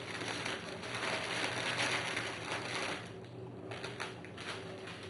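Crinkly rustling of the sponge-finger biscuits' packaging as the biscuits are handled and taken out, lasting about three seconds. It then drops to a few light taps.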